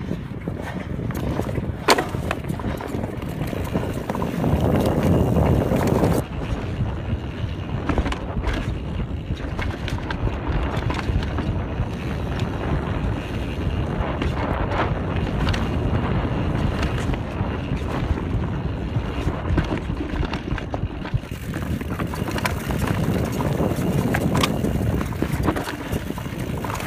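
Canyon Spectral mountain bike ridden fast down a dirt trail: a steady rush of wind and tyre noise, with frequent clatters and knocks from the bike over rough ground, louder for a stretch about four to six seconds in.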